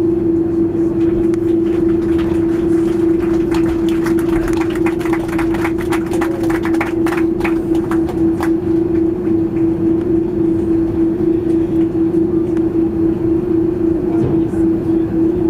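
Cabin noise of an Airbus A330-200 taxiing after landing: a steady hum carrying one constant tone, with a run of short clicks and rattles from about three to nine seconds in.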